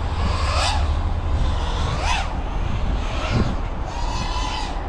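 FPV cinelifter drone in flight, its XNova 2808 brushless motors and propellers buzzing with a whine that rises and falls in pitch several times as the throttle changes, then holds steady near the end. A low rumble runs underneath.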